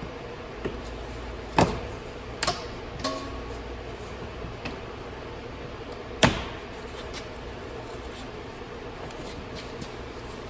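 Several sharp clicks and knocks, the loudest about six seconds in, from plastic interior trim, fittings and hand tools being handled in a car's footwell, over a steady background hum.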